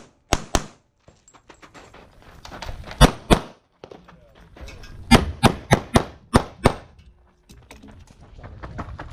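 Semi-automatic pistol fired in a competition stage: a pair of shots just after the start, another pair about three seconds in, then a quick string of six shots from about five to seven seconds in.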